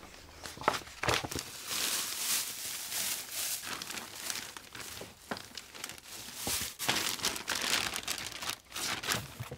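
Plastic bags crinkling and rustling in irregular bursts as hands rummage through a cardboard box of bagged fabrics.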